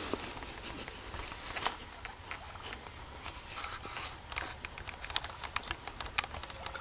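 Soft rustling and scattered light clicks of fabric and gear being handled inside a fabric hunting ground blind.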